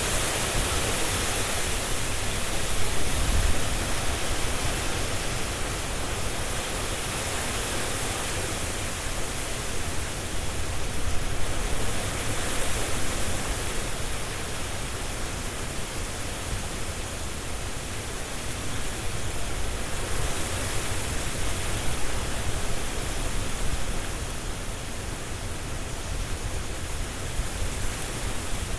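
Hurricane wind blowing hard through trees with leaves rustling, a steady rush with a low rumble that swells in gusts about three seconds in and again around eleven to thirteen seconds.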